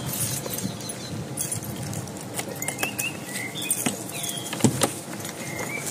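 Keys rattling and the lock and latch of a coach's luggage-bay flap clicking and knocking as it is unlocked and worked open, the loudest knocks about three-quarters through. Birds chirp in the background.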